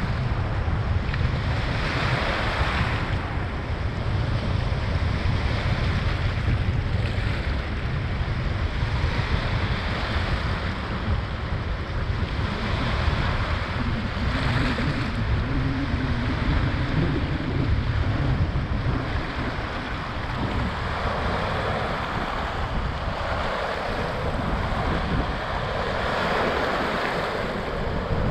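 Waves washing onto the beach of Lake Nahuel Huapi in a series of surges, under wind buffeting the microphone with a steady low rumble.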